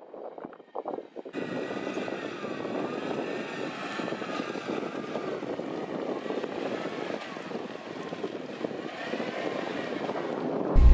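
Jeep Wrangler engine running as it crawls through a muddy water hole, the revs rising and falling; it sets in suddenly about a second in.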